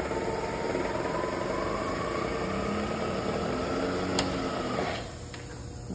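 Sharp HMV knee mill's spindle head running at low speed in low gear, a steady machine hum with a faint whine that slowly rises in pitch. There is a sharp click about four seconds in, and the running noise drops away about five seconds in as the spindle stops.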